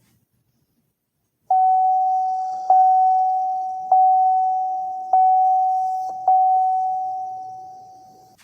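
General Motors door-open warning chime sounding five times, about 1.2 seconds apart, starting about a second and a half in. Each chime is a single steady mid-pitched tone that fades until the next one.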